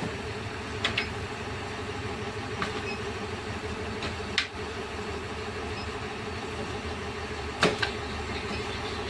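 Heavy machinery at a stone-crushing site running with a steady drone, broken by a handful of sharp knocks of rock or metal: a pair about a second in, one near the middle, and the loudest pair near the end.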